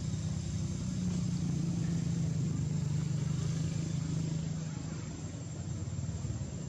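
A low engine rumble, as of a motor vehicle going by, growing louder about a second in and easing off after about four seconds.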